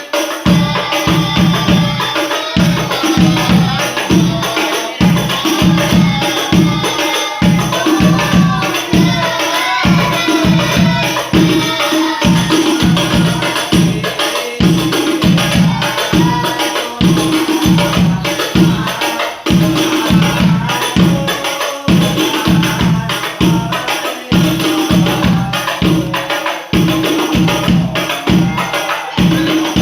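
Sholawat music: rebana frame drums and jingles keep up a steady beat of about two strokes a second while voices sing devotional verses over them.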